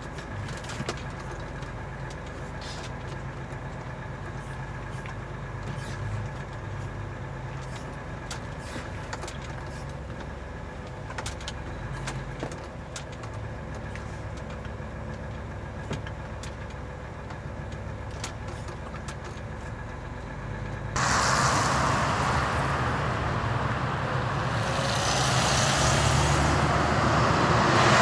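Truck cab interior with the diesel engine running steadily while driving, with scattered small clicks and rattles. About 21 seconds in, the sound switches abruptly to a much louder, even rushing noise.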